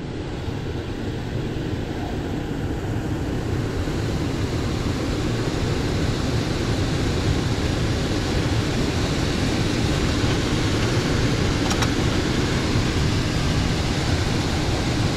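Indoor air handler's blower running with a steady rush of air, building up over the first few seconds as it comes up to speed.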